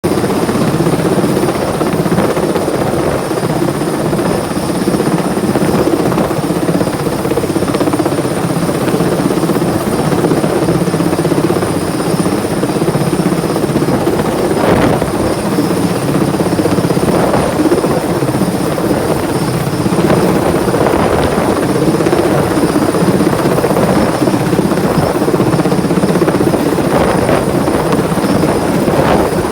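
Helicopter running continuously, a loud steady rotor-and-engine drone with a thin, steady high whine above it.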